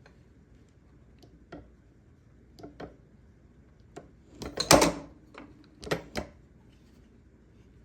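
Scattered knocks and clatters of hard parts being handled and set down on a workbench, with a loud rattling cluster about halfway through and a few single knocks after it.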